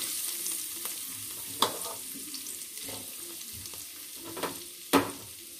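Paneer cubes coated in turmeric and salt sizzling in hot oil in a kadai. A few sharp clicks come as more cubes are dropped into the pan: one about a second and a half in and two near the end, the last the loudest.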